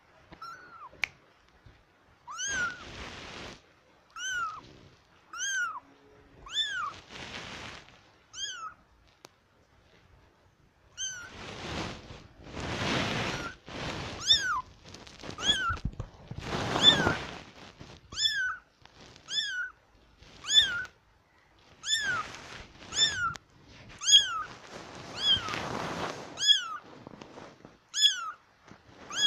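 A tiny kitten mewing over and over: short, high-pitched mews that rise and fall, a few at first and then about one every second. Between the mews come bursts of rustling noise.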